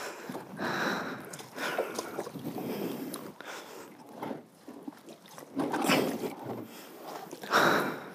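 Shallow river water sloshing and splashing in irregular bursts as a fallen 1989 Honda Transalp motorcycle is dragged on its side across a slick riverbed, with the rider's heavy breaths and effort close to the helmet microphone.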